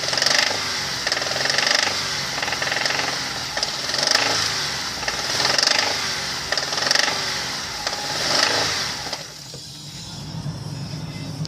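Hyundai Terracan's 3.5-litre G6CU V6 petrol engine revved in about seven quick blips, roughly one every second and a half, with a knocking rattle in the engine. Near the end it drops back to a steady idle.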